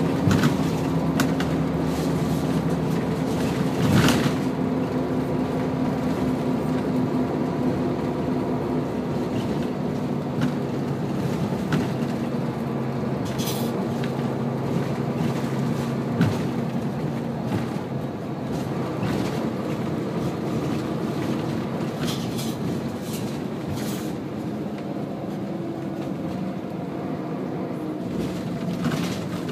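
Scania L94UB bus's diesel engine and ZF automatic gearbox heard from inside the passenger cabin while driving: a steady engine drone, with a few sharp knocks and rattles from the body, the loudest about four seconds in.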